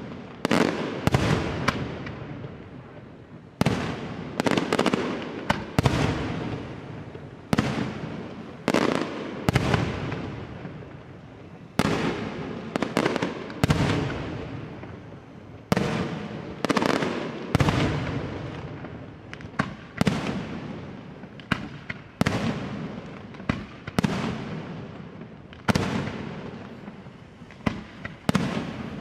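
Tufano Fireworks aerial shells bursting one after another in a night display: sharp bangs, often in twos and threes about every two seconds, each followed by a long fading echo.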